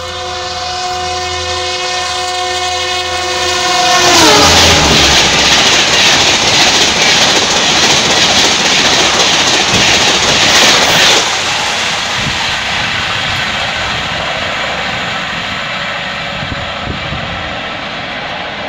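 Gatimaan Express running through at high speed. Its WAP-5 electric locomotive sounds a long, steady horn that drops in pitch as it passes, about four seconds in. A loud rush of wheels and coaches follows for about seven seconds, then eases and fades as the train draws away.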